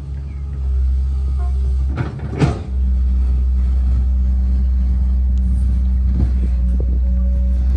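Heavy diesel engine running steadily: a low rumble with a steady hum over it, broken by a short clatter about two seconds in.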